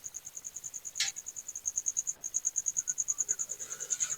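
A cricket chirping steadily: a fast run of high, evenly spaced pulses, with one faint click about a second in.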